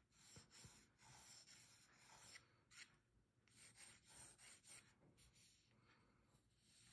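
Faint scratching of a graphite pencil drawing lines on paper, in a series of short strokes with brief pauses between them.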